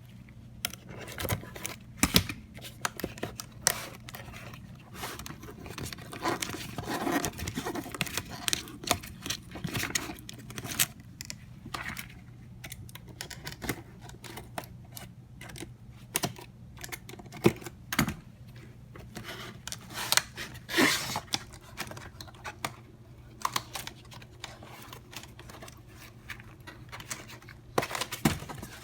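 Hands struggling to open a power tool's retail packaging: a long run of irregular clicks, taps, rustling and tearing of cardboard and plastic.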